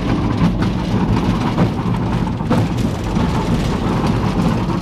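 Half-track in motion: a loud steady rumble of engine and running gear with scattered rattles and clanks, heard from inside its open troop compartment.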